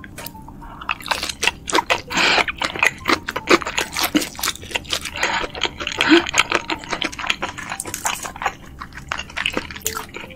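Close-miked eating sounds of battered fried shrimp in sticky red sauce: the shrimp being dipped and chewed, with rapid wet clicks and squelches from the sauce and the mouth.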